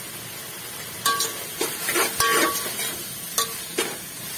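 Slotted metal spatula scraping and clinking against a metal cooking pot as spiced vegetables are stirred, over a steady low sizzle of frying. The scraping starts about a second in and comes in irregular strokes, some with a short metallic ring.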